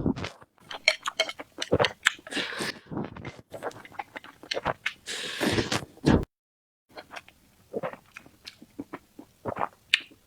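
Close-miked eating: a person chewing and biting food, with many short wet mouth clicks. The sound drops out completely for about half a second a little past the middle.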